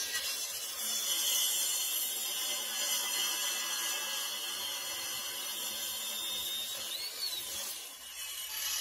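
Compound mitre saw running at speed, its blade cutting down through a laminated wooden block with a steady, high-pitched whine and rasp.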